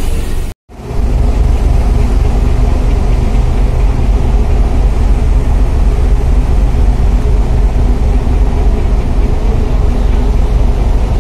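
Steady low rumble heard from the open deck of the moving KMP DLN Oasis ferry: the ship's engine drone mixed with wind and sea noise. It drops out to silence for a moment at a cut just over half a second in.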